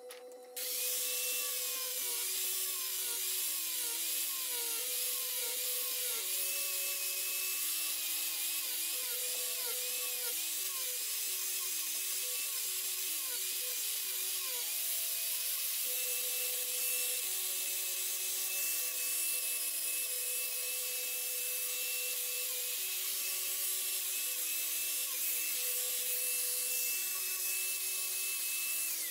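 Angle grinder with a shaping disc running against cherry wood, carving the end grain; its high motor whine wavers as the disc bites and eases. Near the end the grinder is switched off and the whine falls away as it spins down.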